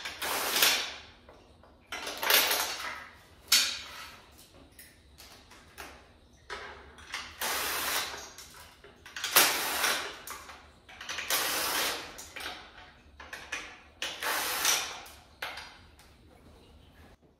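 Cordless power driver running intake manifold bolts in and out in short bursts, about eight spins of roughly a second each with pauses between.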